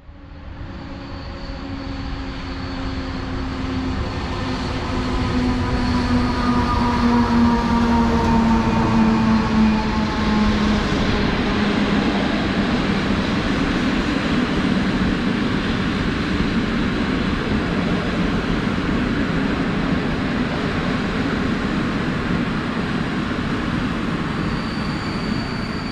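A train passing: several humming tones from the locomotive slide down in pitch over the first ten seconds as the noise swells, then the wagons run by with a steady rush of wheel and rail noise.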